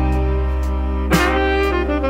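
Background music: sustained melody notes over a steady bass line, moving to new notes about a second in.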